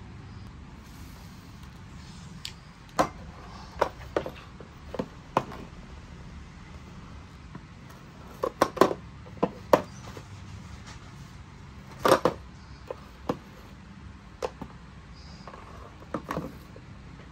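A series of irregular sharp clicks and knocks, about a dozen, clustered most thickly around the middle, over a faint steady background.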